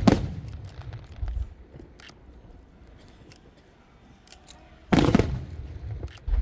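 Aerial firework shells bursting: a loud bang at the start and another about five seconds in, a smaller bang near the end, with low thuds and scattered crackling in between.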